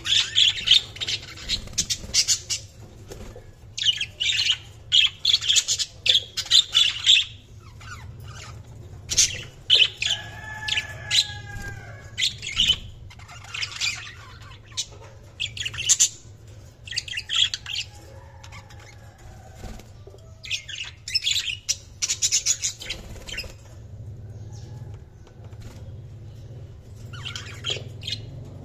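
Budgerigars chirping and chattering in quick bursts of a second or two, with short pauses between, over a steady low hum.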